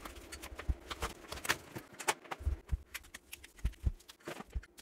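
Cardboard packaging being pulled from a torn paperboard mailer envelope and handled on a wooden desk: irregular scrapes, rustles and light knocks.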